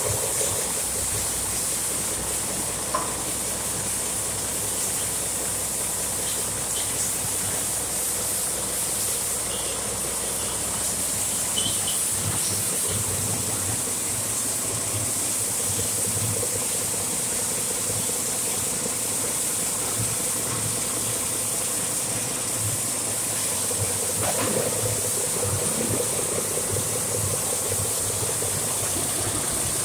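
Caterpillar 3306 10.5-litre turbocharged six-cylinder diesel engine running steadily on a test stand, a low rumble with a steady high hiss over it.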